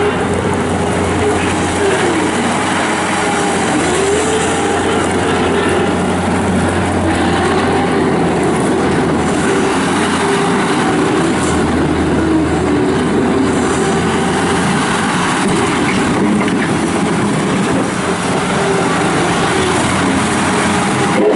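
1998 New Holland LX665 turbo diesel skid steer loader running hard while being worked, its engine and hydraulics making a steady loud drone whose pitch rises and falls again and again as it is loaded and eased off.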